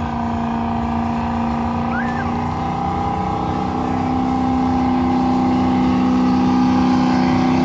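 Diesel engine of a pulling vehicle running hard at a steady pitch, growing gradually louder.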